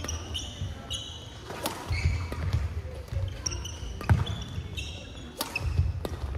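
Badminton doubles rally in a large hall: about three sharp cracks of rackets hitting the shuttlecock, with short high squeaks of court shoes on the floor and thudding footsteps between the hits.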